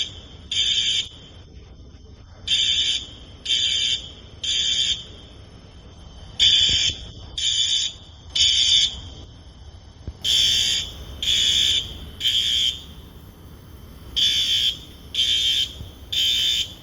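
Fire alarm sounding in the temporal-three pattern: three loud, high beeps, then a pause, repeating about every four seconds. It was set off by smoke from cooking bacon.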